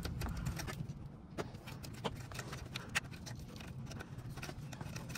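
Scattered light clicks and taps of a plastic wiring-harness clip and its loom being handled and pushed back into place on an alternator, a few sharper clicks among faint rustling.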